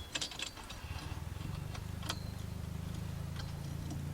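A few clicks, then a small motor starts about a second in and hums steadily with a fast, even pulsing.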